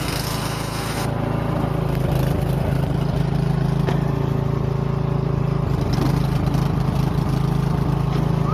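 Toro 1000 Snow Series snowblower engine running steadily after its carburetor was cleaned, the engine now running on its own. The hum gets a little louder about a second in.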